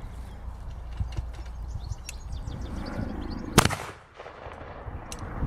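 LP gas bird scarer cannon firing a single sharp bang about three and a half seconds in.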